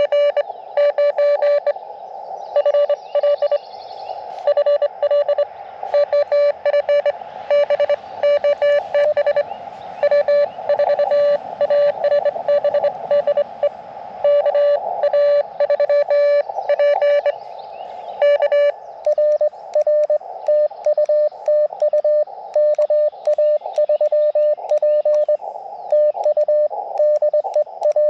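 Morse code (CW) from an Elecraft KX2 transceiver: a keyed tone of about 600 Hz in dits and dahs over the receiver's narrow band of hiss. The keying rhythm and the tone's character change about two-thirds of the way through.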